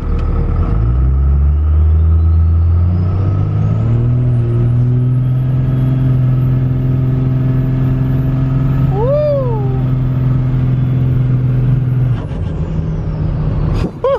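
Dodge Ram's 2nd-gen 24-valve Cummins turbo-diesel inline-six making a hard acceleration pull. The engine note climbs in steps over the first few seconds and then holds steady, with a high turbo whistle rising and holding over it. Both fall away about twelve seconds in as the throttle is lifted. The driver calls the run "only 75%".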